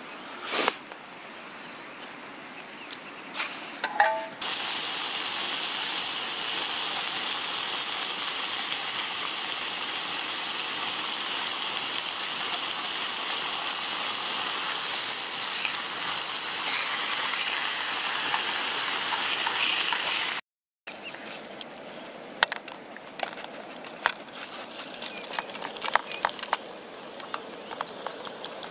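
About four seconds in, bacon starts sizzling loudly in a steel camping frying pan, a steady hiss that cuts off suddenly. Quieter scraping and clicking of metal tongs stirring scrambled eggs in a pan follows.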